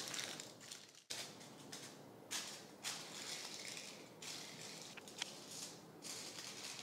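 Aluminium foil crinkling in short, irregular bursts as it is pressed and crimped down over the rims of paper cups.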